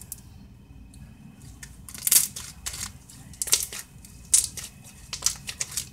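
Crunchy slime with foam balls mixed in, squeezed and kneaded by hand right at the microphone, giving irregular crackling and popping clicks that start after a quiet first second or so.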